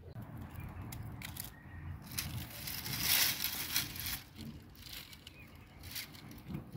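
Dry date-palm fruit strands and fronds rustling and crackling as dates are picked from the cut bunches. The crackling is loudest about two to four seconds in.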